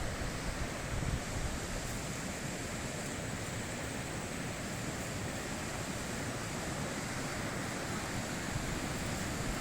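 High-mountain river flowing, a steady, unbroken rush of water.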